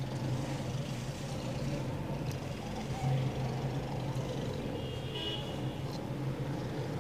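A steady low hum, with cloth rustling as a stitched frock and its lining are turned and handled, a few light clicks, and a short high tone about five seconds in.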